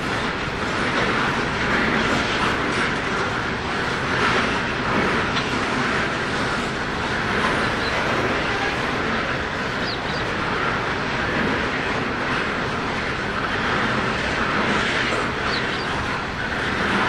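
Loaded coal hopper wagons of a long freight train rolling past: a steady rumble of steel wheels on rail with clickety-clack over the rail joints.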